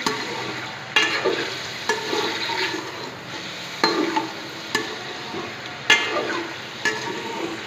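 Chicken cubes sizzling in hot oil in an aluminium pot as a metal slotted spoon stirs them, the spoon striking the pot about once a second. The chicken is being browned and is still raw and white.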